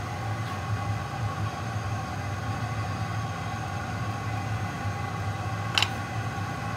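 Steady mechanical drone of glass-studio equipment running, with a single sharp click near the end.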